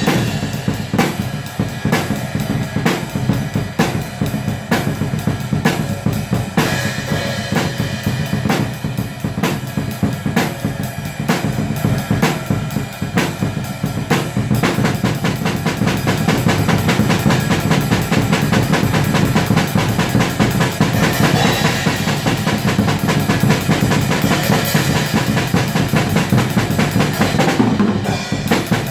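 Atmospheric black metal music with fast, dense drumming.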